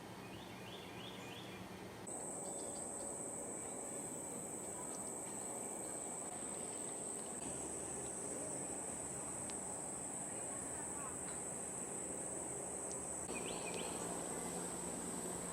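Steady high-pitched insect drone that cuts in abruptly about two seconds in, with a few short bird chirps near the start and again near the end.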